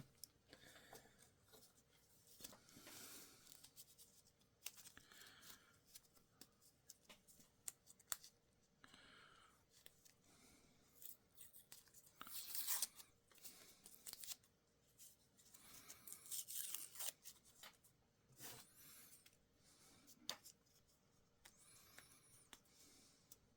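Faint tearing and scraping as a glue-stuck paper template is peeled off thin plywood puzzle pieces, in short bursts with light clicks of the pieces being handled.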